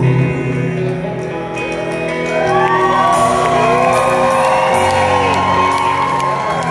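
Live rock band letting a held chord ring out at the end of a song, with whoops and shouts from the crowd rising over it.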